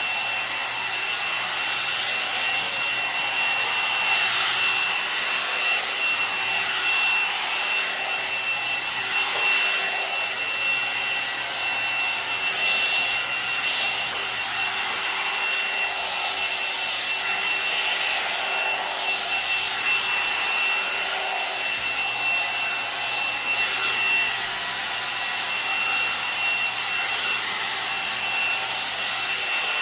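Kommok hot air brush running steadily, its fan blowing with a high, even motor whine, while the brush is worked through hair and the bristles rub.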